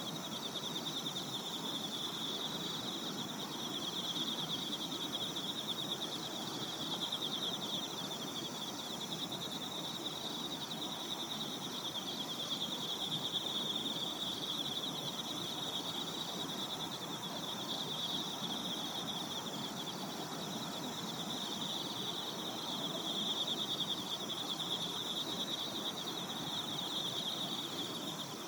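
Insects trilling in a steady, high-pitched continuous chorus, with a soft, even hiss of ambient noise underneath.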